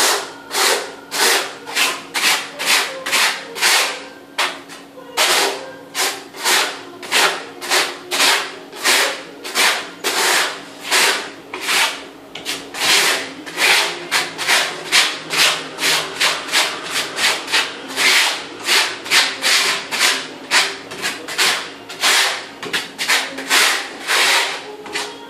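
Notched steel trowel scraping grey tile adhesive across the back of a large porcelain floor tile, back-buttering it, in quick back-and-forth strokes of about two a second.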